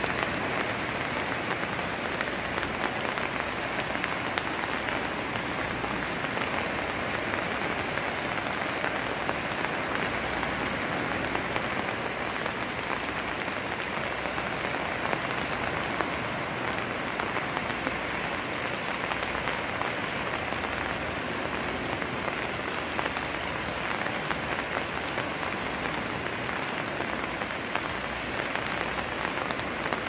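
Light rain falling, a steady, even hiss.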